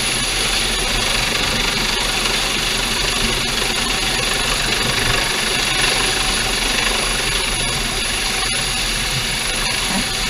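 Coast Guard MH-65 Dolphin helicopter hovering low overhead, its turbine and rotor running in a steady roar, with the rotor downwash rushing over the sea and the boat.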